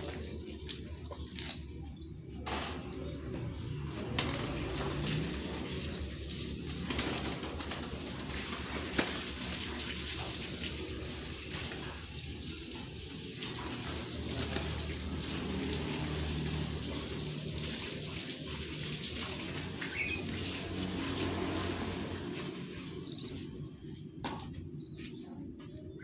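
Garden hose spraying water over bird cages, a steady hiss, with caged birds fluttering their wings in the spray. The spray stops near the end after a short loud knock.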